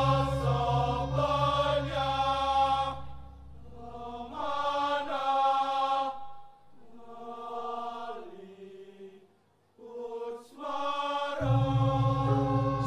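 Balinese sung chant: one voice holding long notes that step from pitch to pitch over a steady low drone. About halfway through, the drone drops out and the voice thins to a quiet line, almost stopping, then both return near the end.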